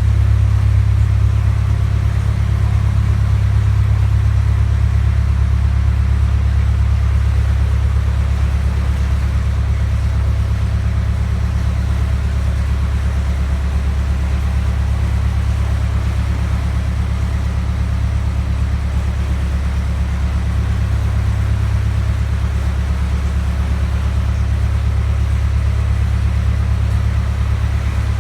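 Narrowboat engine running steadily at low speed: an even, low rumble with no change in pace.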